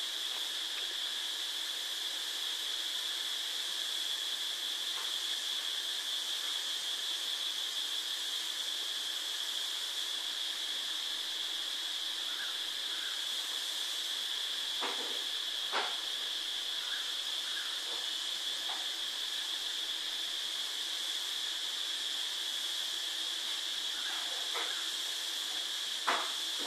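Steady hiss with a constant high-pitched whine, the recording's own background noise. A few faint short clicks and brief faint squeaks come in around the middle and near the end.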